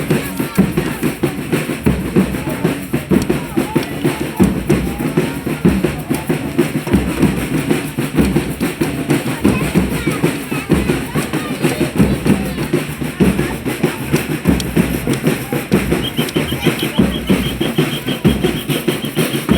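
Reisado (folia de reis) group playing, with drums beating a dense, steady rhythm. A high trilling tone joins near the end.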